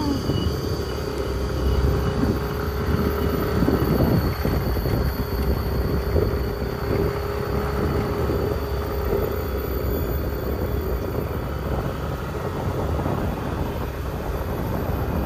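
A vehicle's engine running steadily while on the move, with a heavy low rumble and a steady hum that fades about eleven seconds in.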